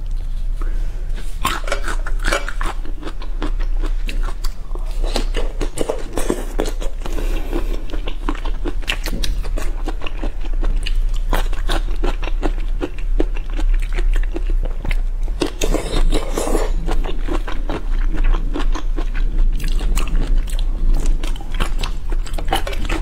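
Fingers peeling and pulling apart soy-sauce-marinated shrimp in their sauce, heard close up as a dense, irregular run of small clicks and crackles over a steady low hum.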